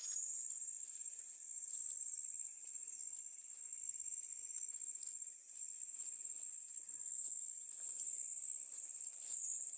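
Steady, high-pitched chorus of insects buzzing without a break, with faint scattered ticks underneath.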